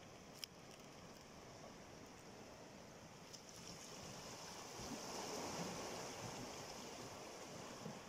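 Faint seawater lapping and washing among shoreline rocks, swelling louder for a couple of seconds about halfway through. A single sharp click about half a second in.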